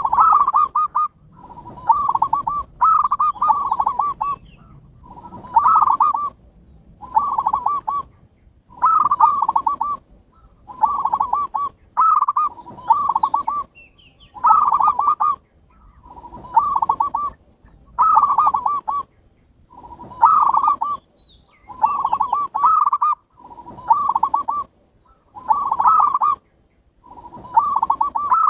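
Zebra dove (perkutut) cooing: rolling phrases of quick, mellow notes, repeated about every second and a half.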